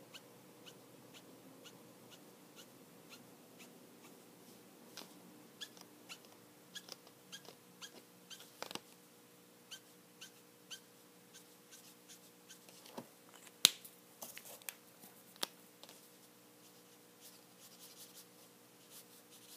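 Copic marker nib flicking short strokes onto paper: a run of faint, quick ticks and scratches, sparse at first and closer together later, with one louder click about two-thirds through. A faint steady hum lies underneath.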